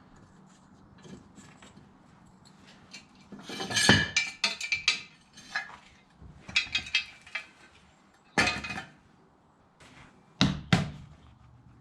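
Metal tools clinking and clattering as they are handled, in several short, irregular clusters of knocks with quieter gaps between.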